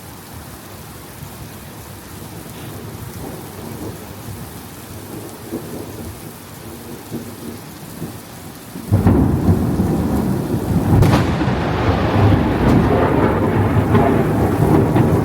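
Steady rain falling, then about nine seconds in a loud thunderclap breaks in suddenly and rumbles on, deep and heavy.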